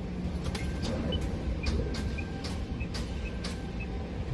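Steady low rumble inside a truck cab, with irregular sharp clicks and faint short high chirps about twice a second.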